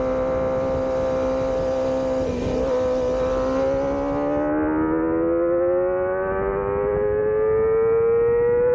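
Kawasaki ZX25R's 250 cc inline-four engine heard on board as a high whine. It holds steady revs for about two and a half seconds, then climbs steadily in pitch under acceleration, and a gear change drops the pitch right at the end.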